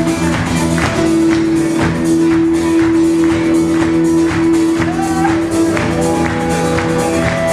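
Live rock band playing an instrumental passage at full volume: drums keep a steady beat over guitars and long held notes.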